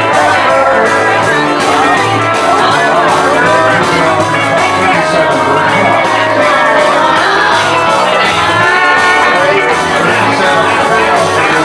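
A country-rockabilly band playing with a singer, over a steady bass beat.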